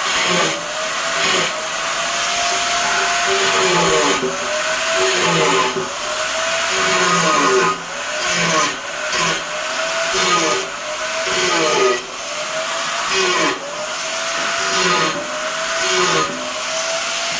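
Electric cutting tool running at high speed through ceramic tile, with a loud gritty hiss. Its motor pitch sags and recovers about every second or so as the blade is pushed into the tile and eased off.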